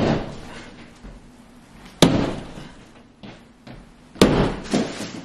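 Sledgehammer striking a drywall wall three times, about two seconds apart, each blow a sharp crash that fades quickly.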